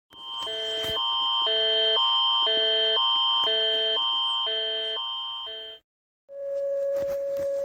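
Electronic emergency-alert alarm tones: a steady high tone over a two-tone warble that switches between a lower and a higher pair of notes every half second, stopping just before six seconds in. After a short gap a new steady, lower alarm tone begins.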